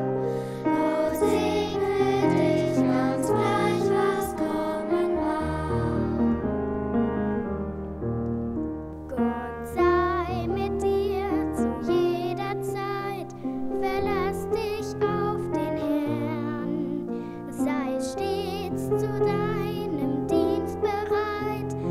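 Calm music in the style of a children's song or lullaby, with held chords and a melody line.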